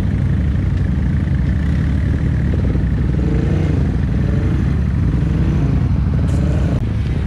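Honda ATV engine running hard under throttle, steady and loud, while the bogged-down quad churns its mud tires in a deep mud hole.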